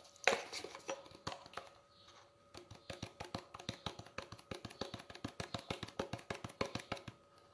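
A spoon tapping and scraping against a tin of cocoa powder while spooning cocoa out of it. A few sharper knocks come in the first second or so, then a quick, even run of light taps, about six a second, through the second half.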